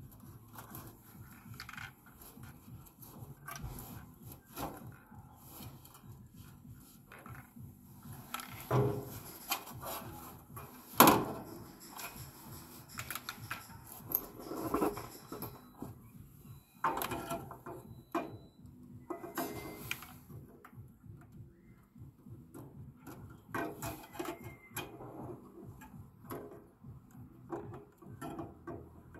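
Irregular clicks, knocks and rustling from gloved hands handling parts and fittings inside a heat pump water heater's lower compartment, with one sharp knock about eleven seconds in.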